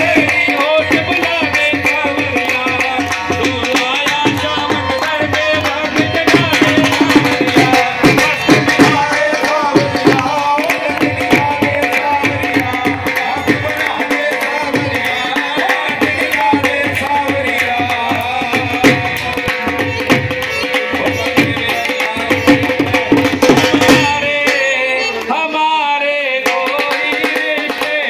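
Loud dance music with a driving hand-drum rhythm and singing. The drums drop out for about two seconds near the end, then come back.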